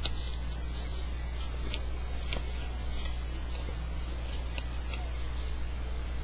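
Paper being handled: scattered crinkles and light ticks as a folded index-card pouch is worked in the hands, over a steady low electrical hum.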